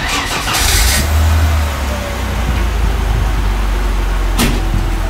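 Volvo 960's 24-valve straight-six running at idle through a newly fitted budget Bosal exhaust, with a louder surge in the first second or so, then a steady low rumble. A sharp click sounds about four seconds in.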